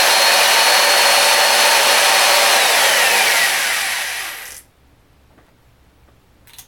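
Corded electric drill running at full speed with a high motor whine, twisting a strand of kanthal wire held on a pin in its chuck. The whine falls as the drill winds down from about two and a half seconds in, and the drill stops about four and a half seconds in.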